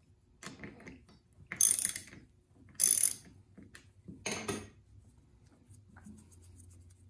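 Socket ratchet clicking in four short runs as the Homelite XL chainsaw's loosened clutch nut is spun off, the two loudest runs about two and three seconds in.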